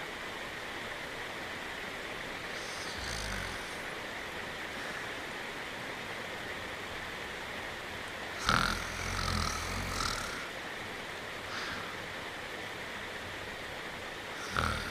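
Steady rain hiss with a cartoon dog's snores over it: a short snore about three seconds in, a longer, louder one from about eight to ten seconds in, and another starting near the end.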